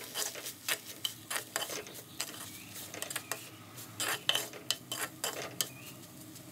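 Steel spoon stirring cooked chopped banana flower and grated coconut in an earthenware pot, scraping and clicking irregularly against the clay.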